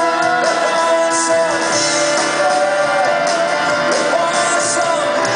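Live band playing a rock song: a voice singing over electric guitars, keyboard and drum kit, with cymbal hits about a second in and again twice toward the end.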